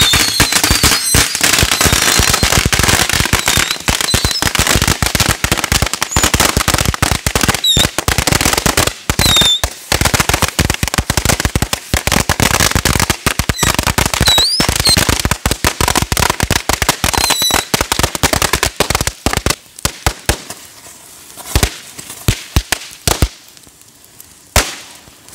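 A box of fireworks going off in a bonfire: a dense, rapid string of firecracker cracks and bangs, with short whistles here and there. After about nineteen seconds it thins to scattered pops.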